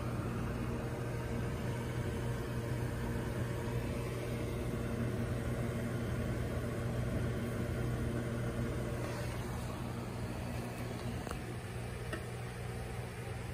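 Steady electric hum over a soft hiss, typical of an aquarium air pump running a sponge filter, with a few faint ticks near the end.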